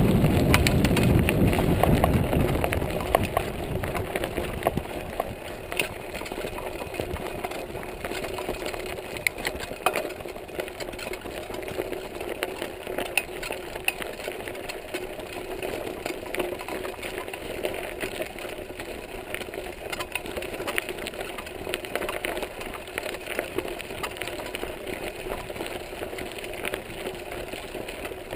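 Montague Paratrooper Pro mountain bike rolling along a gravel trail: a steady tyre rumble with frequent small rattling clicks from the bike. For the first few seconds wind buffets the microphone.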